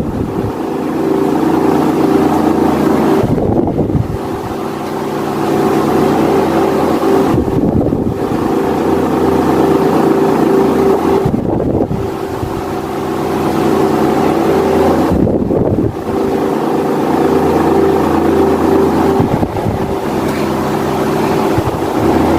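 Britânia Philco 155 W electric fan running with a steady motor hum and rushing air blowing against the microphone. The air noise dips briefly about every four seconds.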